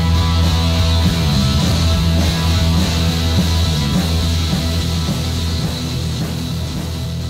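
Rock song's closing bars: electric guitar and drums over steady low bass notes, the whole sound slowly fading out.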